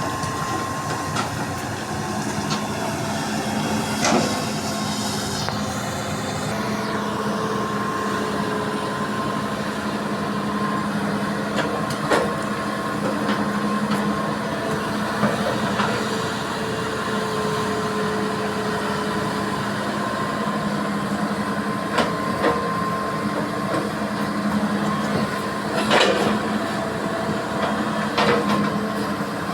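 Diesel engine of a hydraulic excavator running steadily under load while it digs and loads limestone, with a few sharp knocks scattered through.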